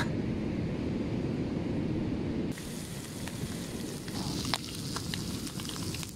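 Low rumble of wind on the microphone, then about two and a half seconds in, bacon rashers sizzling in cast iron frying pans, a steady hiss with scattered sharp pops of spitting fat.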